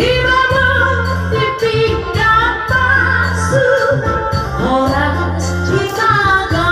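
Background music: a woman singing a melody over a steady, pulsing bass beat.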